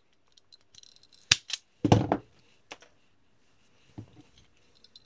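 Small clicks and handling noises of hands fitting a connector onto a stripped mains cable wire end: a few separate sharp clicks, the loudest about two seconds in, with faint rustling between.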